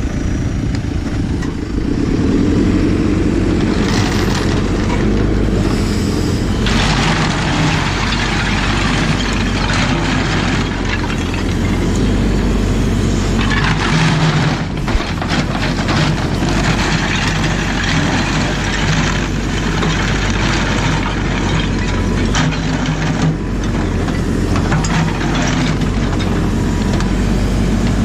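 JCB 4CX backhoe loader's diesel engine running under working load, its pitch shifting as the hydraulics are worked. Over it come long spells of heavy, noisy scraping and crunching, from roughly a quarter of the way in to past halfway.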